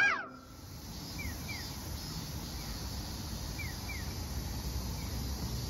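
Outdoor park ambience: a steady low rumble with a high hiss over it, and a few short falling bird chirps, several coming in quick pairs.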